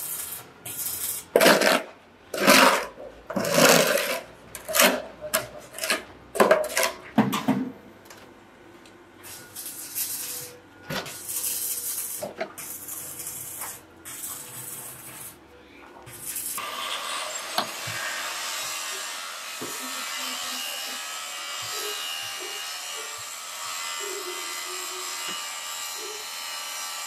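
A steel shovel scraping and chopping spilled foam concrete off a concrete floor in quick, repeated strokes, then a few scattered knocks. About two-thirds of the way in, a steady motor hum starts and runs on.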